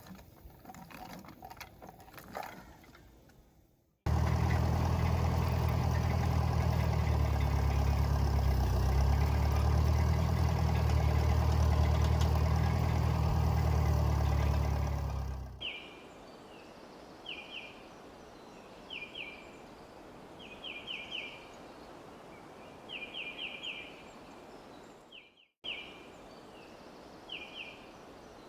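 An engine running steadily for about eleven seconds, then stopping. Afterwards, small birds chirp in short repeated trills over a faint outdoor hiss.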